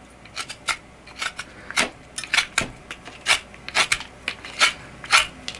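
A 440C steel knife whittling a bamboo stick: a series of short, crisp shaving strokes, about two a second.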